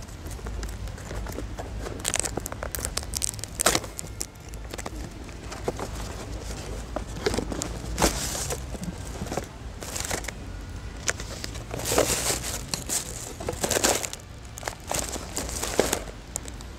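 Gift wrapping paper and a cardboard gift box being handled and torn open: irregular crinkling and tearing sounds, over a steady low rumble.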